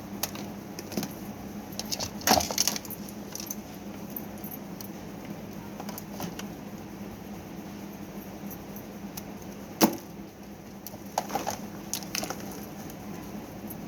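Scattered metallic clicks, taps and rattles from handling tools, wires and fan parts while the motor is tested. Sharp knocks land about two seconds in and near ten seconds, with a few more clicks near the end. A steady low hum runs underneath.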